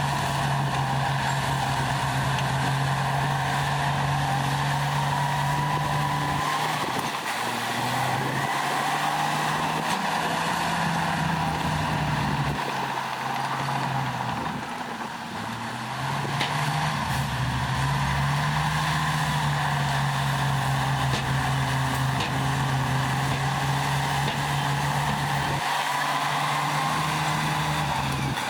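Heavy diesel engine of earthmoving machinery running hard, its note dropping away and picking up again several times, with a wavering higher whine above it. A brief quieter stretch comes about halfway through.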